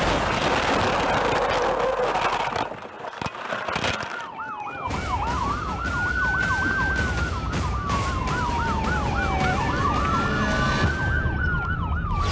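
A couple of seconds of loud noise from a car crash, then, after a short lull, two emergency-vehicle sirens sound together: one in a fast yelp, the other in a slow wail that rises and falls.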